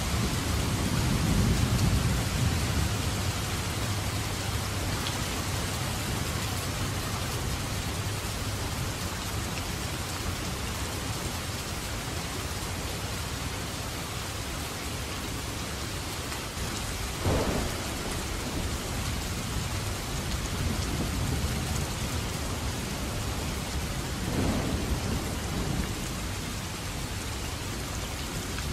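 Heavy downpour of rain falling steadily, with thunder: a low rolling rumble in the first few seconds, then two sharper thunderclaps, one a little past the middle and one near the end.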